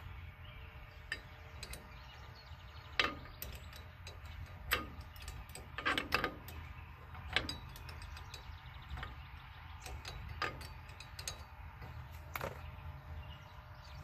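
Irregular metallic clicks and clinks from a combination wrench being fitted to and turned on a hub bolt of a rear drum-brake assembly, over a steady low hum.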